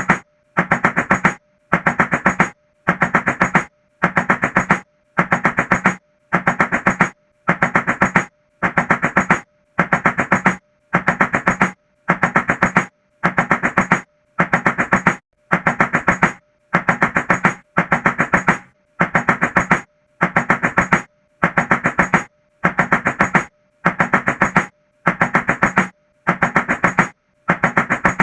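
Rapid knocking on a door in short bursts, each a quick run of knocks lasting under a second, repeated identically about once a second with a brief silence between.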